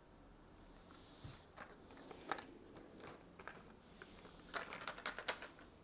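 Crayons being handled on a table: scattered light clicks and taps, with a quick run of small clicks near the end.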